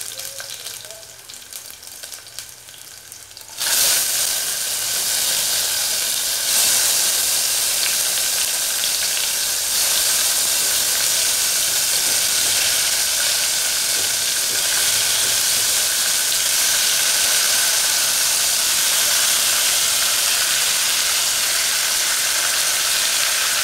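Tomato pieces dropped into hot mustard oil with garlic and dried chillies, sizzling in the pan. A faint crackle at first, then a sudden loud frying hiss about three and a half seconds in as the wet tomatoes hit the oil, growing louder again a few seconds later and holding steady.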